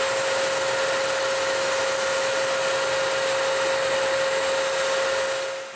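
Spray gun spraying white-tinted varnish: a steady hiss of air and finish with a constant whine through it, fading out just before the end.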